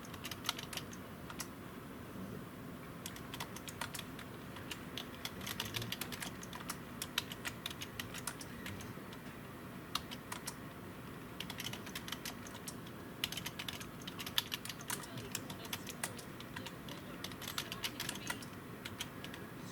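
Typing on a computer keyboard: quick runs of soft key clicks broken by short pauses.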